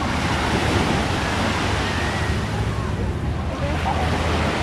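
Small waves washing up and draining back on a sandy beach, a steady wash of surf, with faint voices of people nearby.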